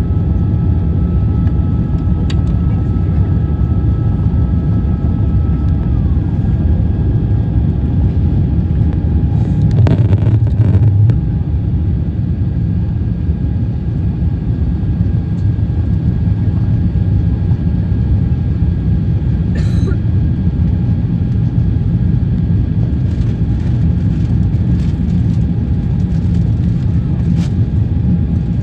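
Cabin noise inside an Airbus A350-900 airliner: a loud, steady rumble of the Rolls-Royce Trent XWB engines and airframe with a thin steady whine above it. About ten seconds in the rumble briefly swells, with some rattling.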